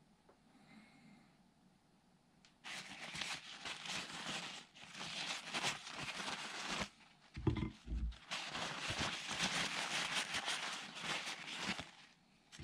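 Paper towel rustling and crinkling close by as hands rub it over slices of smoked pork luncheon meat to wipe off the oil. It starts about two and a half seconds in, with a short break and a few dull bumps from handling around the middle.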